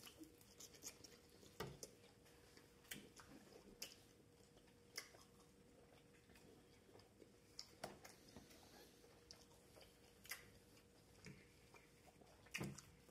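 Faint close-up chewing of pizza: scattered soft mouth clicks and smacks, roughly one every one to two seconds, over a faint steady hum.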